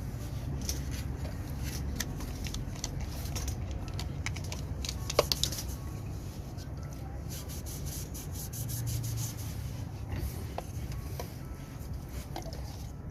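Irregular scraping and rubbing strokes on metal, typical of rust being scrubbed off a corroded compressor casing, with a sharper scrape about 5 seconds in. A steady low hum runs underneath.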